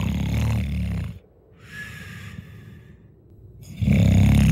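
Cartoon sleeping Tyrannosaurus snoring. A loud, low rasping snore is followed by a quieter breath in with a brief whistle, then another loud snore begins near the end.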